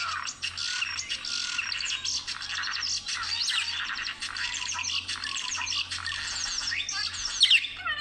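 Budgerigars warbling and chattering: a steady stream of quick chirps and squawks, with one louder sharp call near the end.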